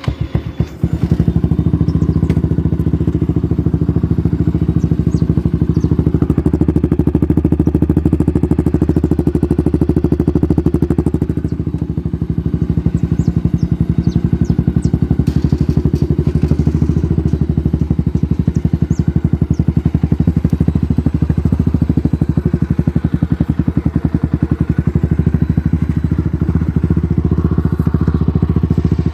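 Honda CB Twister's single-cylinder engine with an aftermarket competition exhaust, catching just at the start and then idling loudly and steadily with a fast even exhaust pulse, its pitch unchanging.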